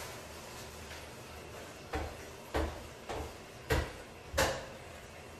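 Five sharp knocks or thuds, about half a second apart, from an unseen source.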